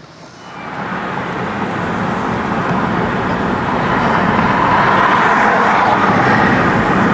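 Car pulling away and picking up speed, its engine and road noise building over the first few seconds and then holding steady.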